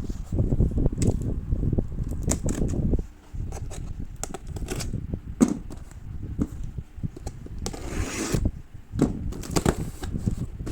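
Plastic-wrapped Indomie Mi Goreng instant noodle packets being handled and counted out of their carton: wrappers crinkling, with irregular clicks, knocks and scrapes and a short rustle near the end.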